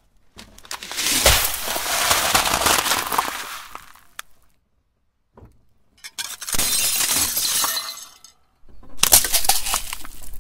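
Three separate bursts of crushing under a car tyre, with gaps between them. First a clear jar packed with small beads cracks and the beads spill and scatter, with glassy clinking. About six seconds in, a stack of plates crunches under the wheel, and near the end another burst of cracking and clinking starts.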